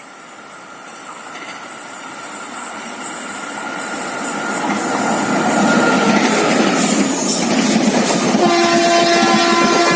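An Indian passenger train approaching a station, its rolling noise growing steadily louder. About eight and a half seconds in, the locomotive horn sounds a long, steady blast.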